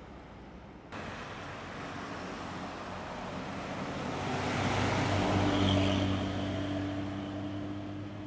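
An intercity bus passing close by on the road. Its engine drone and tyre noise swell to a peak about five to six seconds in, then fade as it goes past, over general road traffic.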